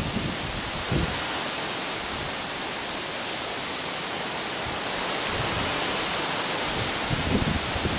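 Steady wind hiss with gusts buffeting the microphone about a second in and again over the last few seconds.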